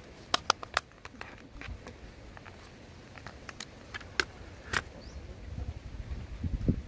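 Small plastic clicks and taps as the parts of a Huawei tablet being taken apart are handled and set down on a wooden table, a few scattered ticks a second, with low rumbling handling noise growing near the end.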